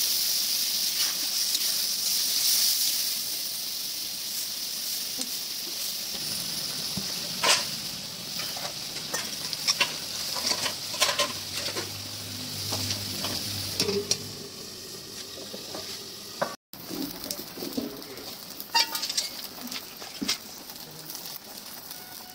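Thin curry gravy sizzling in an iron karahi over a wood fire. A steady hiss is loudest for the first few seconds, then eases, with scattered pops and clicks.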